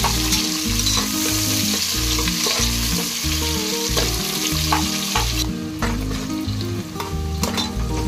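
Sliced onions sizzling in hot oil in a pressure cooker pot, stirred with a metal perforated ladle that clicks and scrapes against the pot now and then. The high sizzle thins about halfway through.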